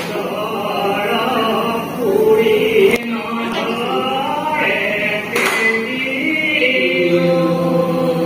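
Devotional singing in a slow, chant-like style, with long held notes.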